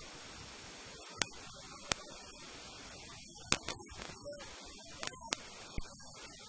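A handful of sharp, short smacks, about seven, scattered irregularly over a faint steady hiss, with faint snatches of voices now and then.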